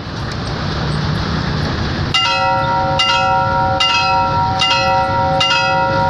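Railway-crossing warning bell at the guard post ringing to announce a train, over the rumble of road traffic. It starts about two seconds in: a clanging stroke roughly every 0.8 s over a ringing tone that carries on between strokes. A single bout of ringing like this signals a train coming from the upstream station towards the downstream station.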